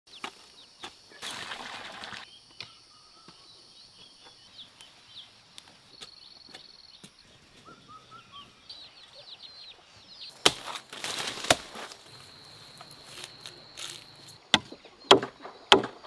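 Outdoor farmyard sounds: scattered sharp knocks, two loud ones past the middle and a quick run of about four a second near the end, over short bird or chick chirps and a steady high-pitched hum.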